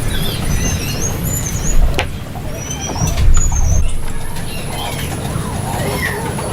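Small birds chirping in short high calls over a steady low rumble, with a couple of sharp knocks about two and three seconds in.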